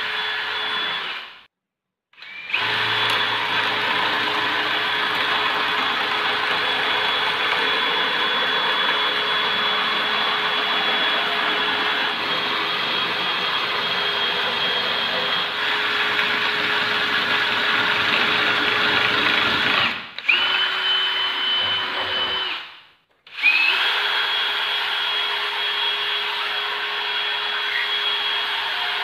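Electric power tool motor running with a steady high whine and rushing noise. It stops twice and each time comes back with a quick rise in pitch as it spins up to speed.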